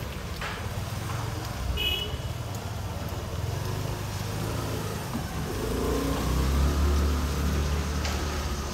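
A motor vehicle's engine running close by on the street, swelling louder about six seconds in and easing off near the end. A brief high chirp sounds about two seconds in.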